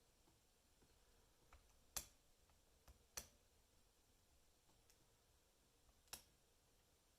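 Faint metallic clicks from lock picking: the pick and tension bar working the pin tumblers of a heavy brass Lockwood 334B45 lock. Three sharp clicks stand out, about two, three and six seconds in, with a few softer ticks between.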